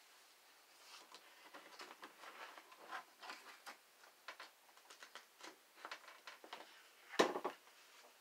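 Faint, irregular crackling and rustling of a sheet of adhesive craft vinyl being handled on a slide paper trimmer, with one sharp knock about seven seconds in.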